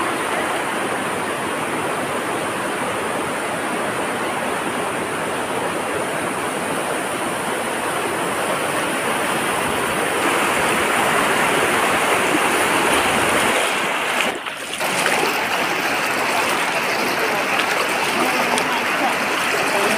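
Floodwater rushing fast across a road, a loud, steady rush of water that dips briefly about three-quarters of the way through.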